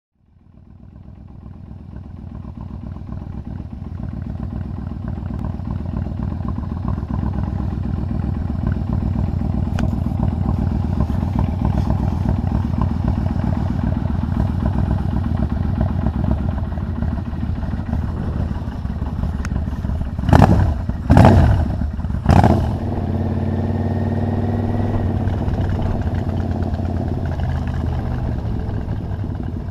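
Yamaha Royal Star XVZ1300 V-four engine running as the motorcycle rides along, fading in over the first few seconds. About twenty seconds in, three loud bursts of noise cut across it, and then the engine note rises as the bike accelerates.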